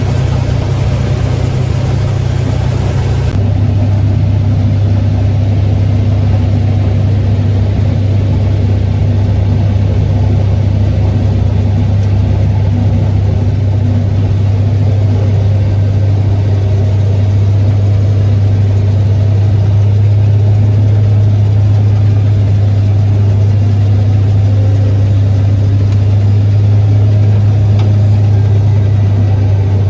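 Farm machine engine running steadily with a deep, even drone; the sound changes abruptly about three seconds in and then runs on steadily.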